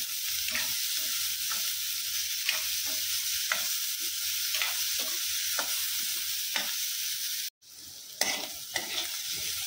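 Sliced onion, tomato, garlic and green chillies sizzling in hot oil in a pan, stirred with a spatula that scrapes the pan about once a second, as they fry until soft. The sound cuts out for a moment a bit past seven seconds, then the sizzling and stirring resume.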